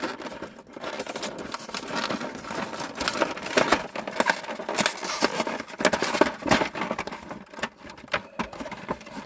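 Cardboard-and-plastic blister packaging of a Hot Wheels five-pack being torn and pulled open by hand: irregular crackling, tearing and scraping with many sharp snaps.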